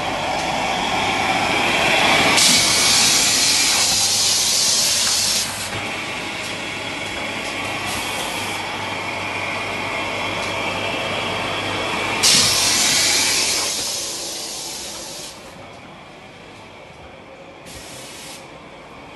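Automatic kitchen towel bundle packing machine running with a steady mechanical clatter and low hum. Loud hissing comes in about two seconds in for around three seconds, again briefly about twelve seconds in, and once more shortly near the end; the machine noise grows quieter in the last few seconds.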